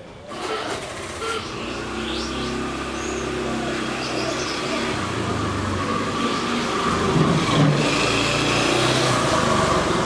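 A motor vehicle's engine runs close by, growing steadily louder, its pitch shifting up and down in steps.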